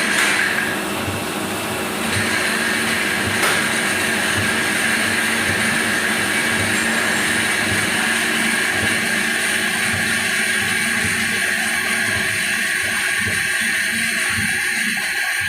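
CNC machine running steadily, a constant mechanical noise with a steady hum and a high whine. There is one sharp click about three and a half seconds in.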